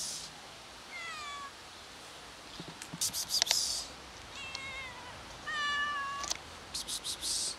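Hungry young stray cats meowing several times, short meows that drop or waver in pitch, the loudest about three quarters of the way through. Between the meows a person twice calls "psst, psst, psst" to them in quick hissing runs.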